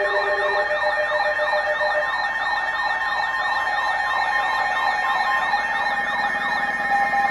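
Emergency alert tones from weather radio and alert receivers sounding together: a rapid siren-like warble sweeping about four times a second over several steady alert tones. The warble stops near the end, leaving one steady tone.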